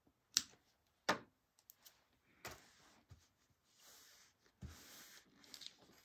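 Double-sided sewing tape being applied to fabric by hand: two sharp snaps in the first second or so, then soft rustling and rubbing.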